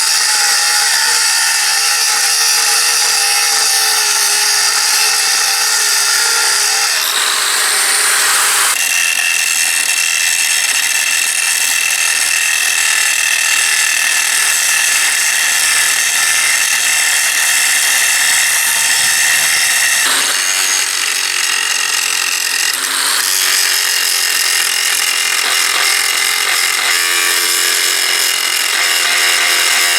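Handheld electric power tool running continuously against the anvil's metal, a steady motor whine whose pitch and tone shift several times as it is pressed and moved over the surface.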